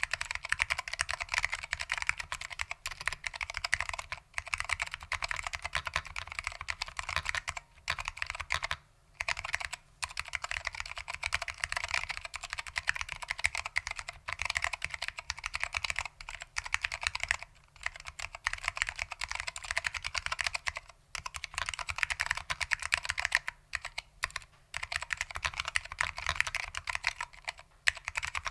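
Typing on a foam-damped Lunar AEK 65 keyboard with SKCM Orange Alps switches. It is a fast, continuous run of key clicks, broken by a few short pauses.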